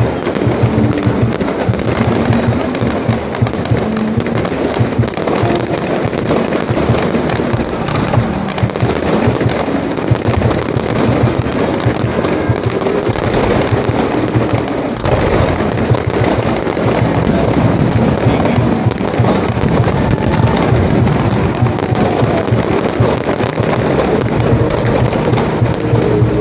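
Dense, continuous crackling of firecrackers and fireworks going off in rapid succession, with music underneath.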